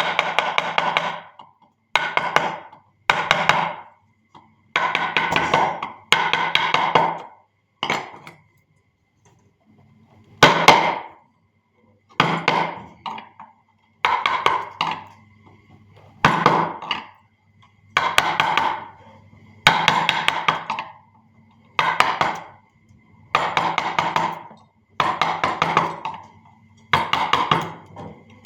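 Hand carving tool worked into wood in repeated strokes, about one every one and a half to two seconds; each stroke is a sharp burst of rapid clicks lasting about a second and fading out. A faint steady hum runs between the strokes.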